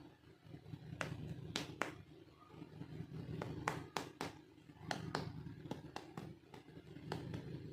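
Small hard toy pieces clicking and tapping as they are handled, about a dozen light, irregular clicks over a steady low hum.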